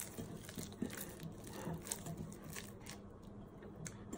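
Wet hands folding soft, sticky yeast dough in a glass bowl, not kneading it, after its first hour's rise. It makes quiet, irregular wet sounds and small clicks as the dough pulls from the hand and bowl.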